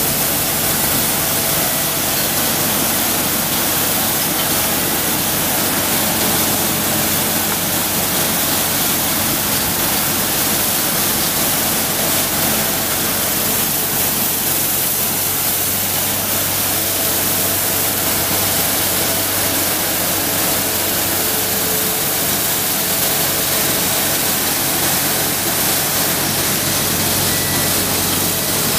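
Compact street sweeper running: a steady loud rushing hiss from its suction and brushes, over a low engine hum, as its rotating steel-bristled side brushes scrub the brick pavement.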